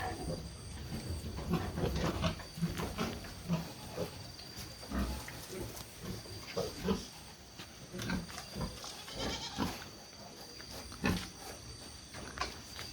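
Pigs grunting and snuffling in their pens, as short, irregular low grunts, with a few sharp knocks.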